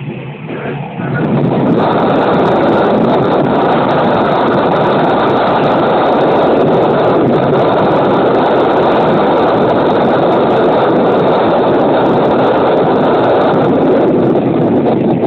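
Wind rushing over the microphone held out of the open window of a moving KiHa 205 diesel railcar, mixed with the railcar's running noise. The rush jumps up about a second and a half in and then stays loud and steady.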